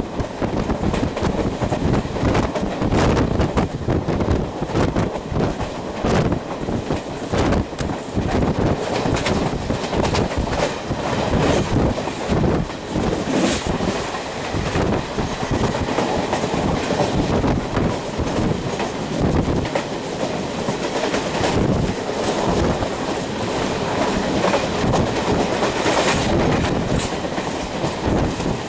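Passenger train running through a station close by, its wheels clattering rapidly over the rail joints as the coaches go past, with a brief high-pitched squeal about halfway through and again near the end.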